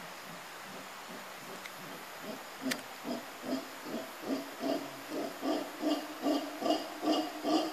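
Mantled howler monkey calling: a run of deep, rhythmic pulses, about two or three a second, that starts about two seconds in and grows steadily louder.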